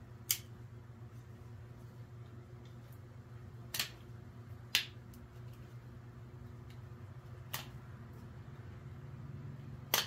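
Hand wire cutters snipping wires one at a time at an ECM harness connector: five sharp clicks a few seconds apart, over a steady low hum. The connector is too packed with dirt to de-pin, so the wires are being cut out.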